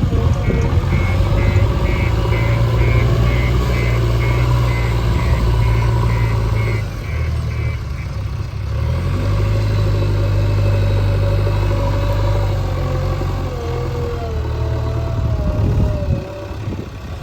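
JCB 3DX backhoe loader's diesel engine running under changing load as it digs and loads, with a high beeping about twice a second for the first several seconds and a wavering whine near the end.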